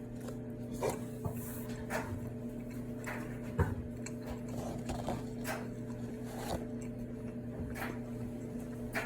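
Close-miked chewing of buttered Texas toast: irregular soft crunches and mouth clicks, over a steady electrical hum.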